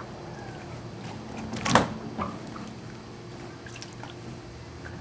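Water lapping and sloshing around a plastic kayak as a person works down into its small cockpit, with one sudden loud knock about two seconds in and a smaller one just after.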